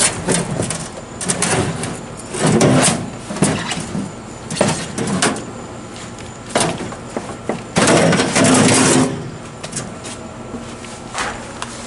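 Knocks, rattles and scraping of the 1972 HeatController window air conditioner's metal casing being handled and taken off to get at the fan, with a longer scrape about two-thirds of the way through.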